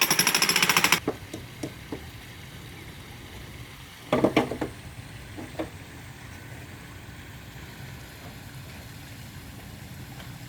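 A jackhammer pounding rapidly into a concrete pool deck stops about a second in. After that a steady low engine hum runs on, with a few scattered knocks; the loudest is a short cluster of sharp hits about four seconds in.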